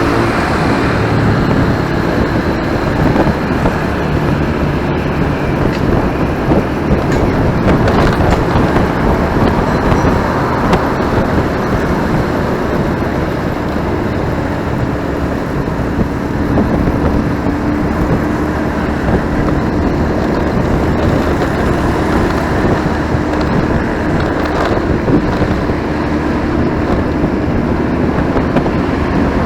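Motorcycle riding along a busy city road: steady engine hum under wind rush and surrounding traffic noise, with no break.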